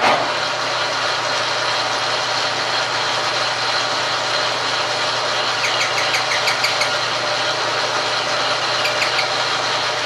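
Logan metal lathe switched on and running steadily, its motor and drive making a continuous hum, with a few light ticks a little past the middle.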